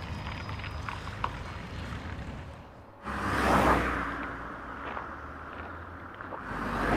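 Two rushing whooshes of noise over a low rumble. The first comes in suddenly about three seconds in and fades away; the second builds near the end.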